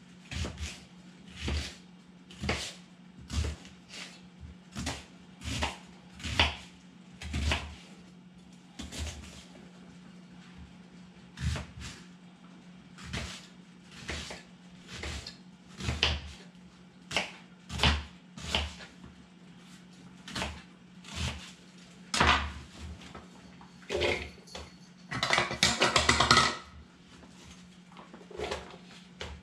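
Kitchen knife chopping a whole onion on a cutting board: a steady series of knocks, about one a second. Near the end comes a busier stretch of clattering.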